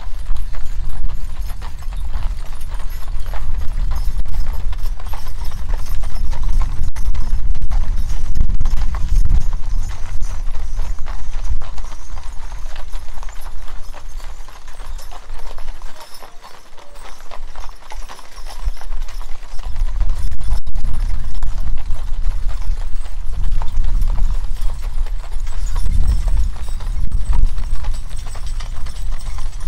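Horse hooves clip-clopping on a gravel road as harnessed draft horses pull covered wagons past, over a heavy low rumble of the passing wagons. The rumble and hoofbeats ease off for a few seconds about halfway through, then build again as the next wagon and team come by.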